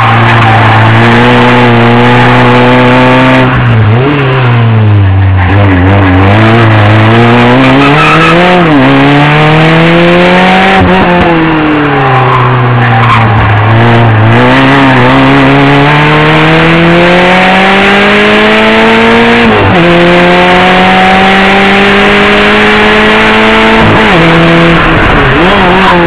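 Renault Clio 1.8 16V's four-cylinder engine heard onboard at full track pace. It revs up through the gears, with long climbs in pitch, and drops sharply at each gear change or lift for a corner: about four seconds in, about nine seconds in, about twenty seconds in, and again near the end.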